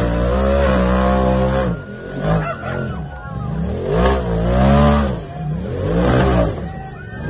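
A side-by-side UTV's engine revving hard in repeated surges, the pitch rising and falling several times, as the buggy powers up a steep rock ledge.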